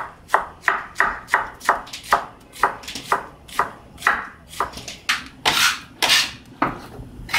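A chef's knife dicing onion on a wooden cutting board, with quick, even strokes about three a second. Near the end there are two longer scrapes as the chopped onion is pushed together with a bench scraper, then a couple more knife strokes.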